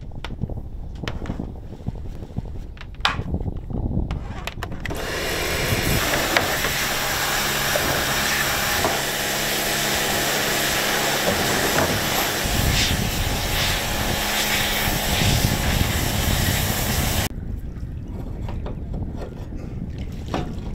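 Electric anchor windlass hauling in the anchor chain: a steady low motor hum, under a loud hissing rush that starts a few seconds in and stops sharply near the end, with a few clicks at the start.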